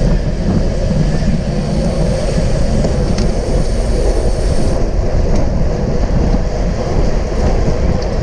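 Steady, loud wind buffeting on an action camera's microphone while riding at racing speed on a bicycle.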